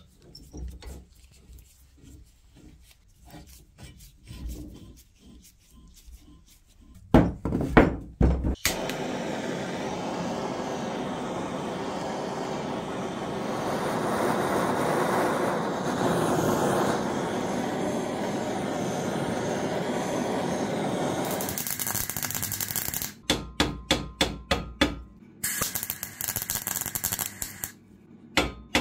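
Metalwork on a broken cast-iron garden bench casting: faint scraping strokes, a few loud knocks, then a long steady noise of about thirteen seconds. Near the end come quick runs of light hammer taps on the repaired joint, about four or five a second.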